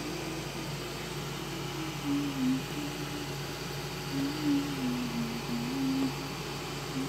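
A soft, slow tune of single held notes, low in pitch and stepping up and down, over a steady background hiss.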